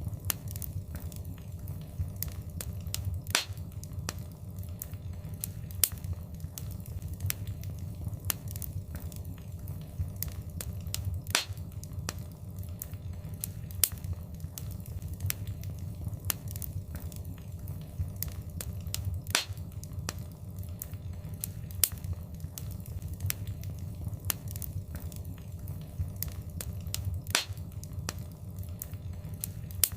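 Fireplace fire crackling, with frequent sharp pops and snaps, some much louder than the rest, over a steady low rumble of flames.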